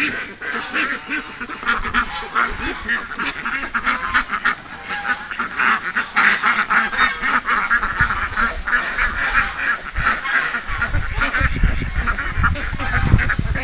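A large flock of domestic ducks quacking continuously, many calls overlapping into a dense chatter, with a low rumble joining in over the second half.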